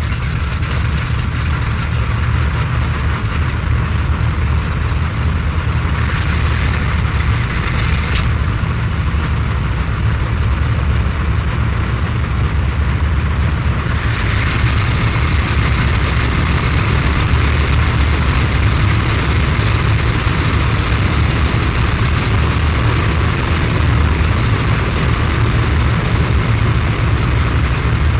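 Bomber aircraft engines running steadily at a deep, constant pitch, heard from outside the aircraft. The higher hiss brightens briefly about six seconds in and again from about halfway through.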